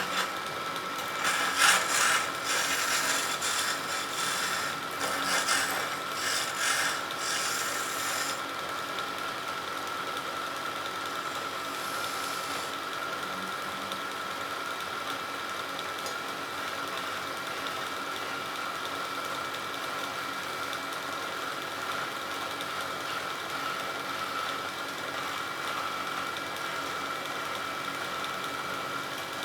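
Wood lathe running with a steady motor whine. For roughly the first eight seconds a turning tool scrapes and cuts the spinning wood in repeated bursts, then the lathe runs on steadily without cutting.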